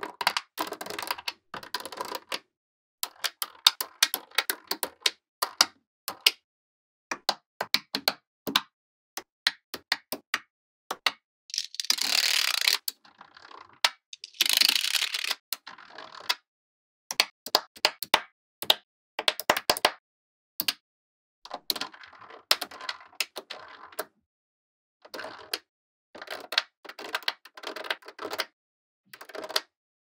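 Small neodymium magnetic balls clicking as they are snapped together and pressed into place, in irregular clusters of sharp clicks with short pauses between them. About halfway through there are two longer, louder rattling clatters of many balls.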